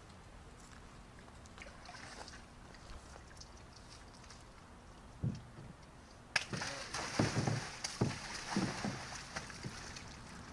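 Water splashing and sloshing in a stock tank as a horse paws into it with a front hoof. The tank is quiet at first, then a run of splashes mixed with dull knocks starts about six seconds in.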